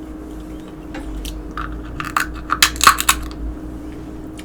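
A quick run of sharp clicks and crackles, bunched about two to three seconds in: seafood shells being cracked and handled close to the microphone.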